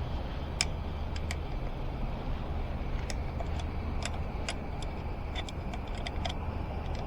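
Scattered small metallic clicks and clinks of hand tools and brake parts being handled, irregular and more frequent in the second half, over a steady low background rumble.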